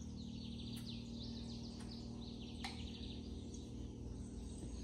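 Faint bird chirping: a run of short, quickly repeated falling chirps over a quiet background hum, with three soft clicks about a second apart.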